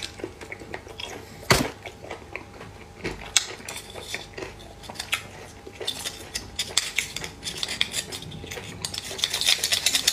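A small utensil scraping and clicking against an oyster shell as the raw oyster meat is pried loose. There is a sharp click about a second and a half in, and the clicks come thick and fast over the last few seconds.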